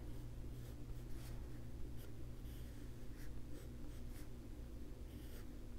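Graphite pencil scratching on drawing paper: a series of short strokes as lines are drawn, over a faint steady low hum.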